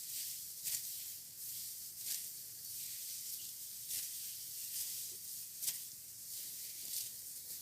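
Dry rice stalks rustling and swishing in short, irregular strokes, about one every second or two, over a steady high hiss, as stalks are cut and handled during a hand harvest.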